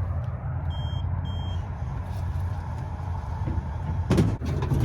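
A disc golf vending machine dispensing a disc: its motor runs with a steady low hum, it gives two short high beeps about a second in, and there are a few knocks near the end.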